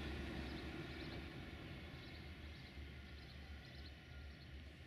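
A train's rumble fading away into the distance, with faint bird chirps.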